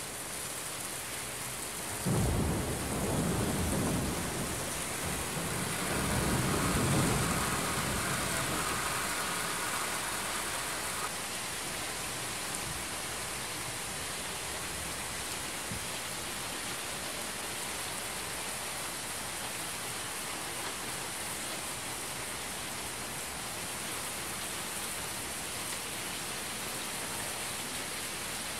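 Steady heavy rain, with thunder: a sudden clap about two seconds in that rumbles for a couple of seconds, and a second roll building around six seconds in.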